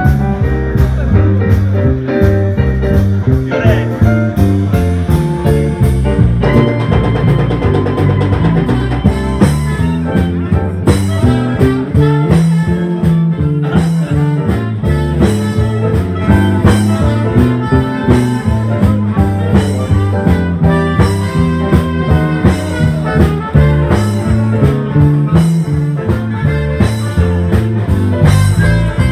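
Live jazz band music: saxophones, trumpet, drum kit and electric guitar playing an up-tempo tune with a steady beat.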